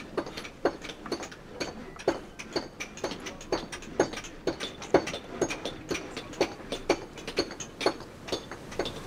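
Steady clock-like ticking, about two even ticks a second.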